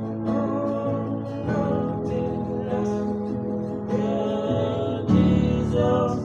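Music: a slow hymn played on guitar, with plucked and strummed notes changing about once a second.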